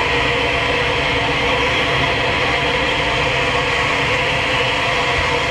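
Steam locomotive working hard under heavy exhaust: a steady rumble and hiss with no separate beats.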